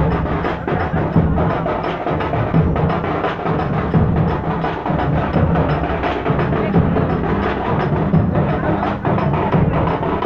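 Loud, fast drumming, dense and unbroken, with deep drum strokes under quick sharp beats.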